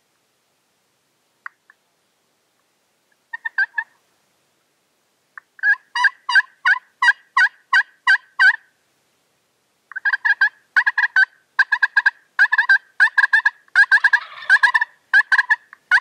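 Turkeys calling: runs of short, evenly spaced notes, about three a second. A brief burst comes first, then a run of about eight notes, then a longer run that turns denser about two seconds before the end.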